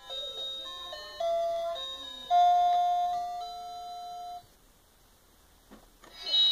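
Electronic melody from a child's toy vanity table: a simple beeping tune of held notes stepping up and down in pitch, which stops about four and a half seconds in. After a soft knock, the tune starts again near the end.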